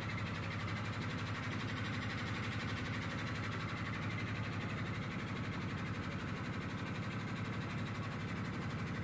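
Tour boat's engine running steadily, heard on board: a low, even drone with a fast regular throb.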